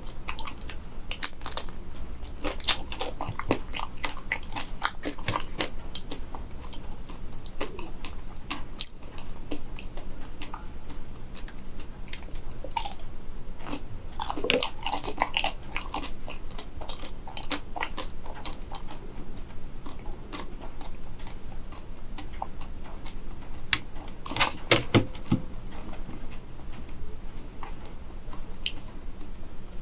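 Close-up biting and chewing of a chocolate-coated banana, its thin hard chocolate shell crunching and crackling in irregular clusters of short crisp snaps.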